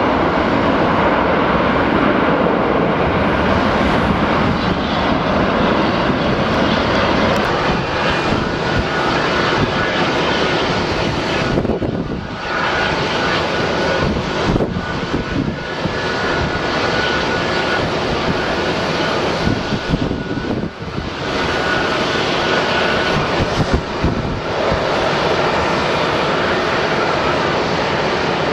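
Jet airliner engines running, a loud steady roar with a faint steady whine mixed in, dipping briefly at about 12 and 20 seconds.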